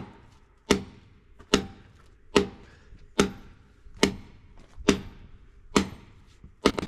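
Big hammer striking a steel anchor again and again, driving it into a drilled hole, in nine steady blows a little under a second apart, each with a short metallic ring. The anchor goes in slowly because the hole is too tight.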